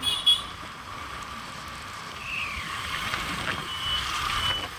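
Street traffic heard from a moving scooter: a steady hum of engines and road noise. A brief sharp sound comes just after the start, and a few short high beeps come in the last second or so.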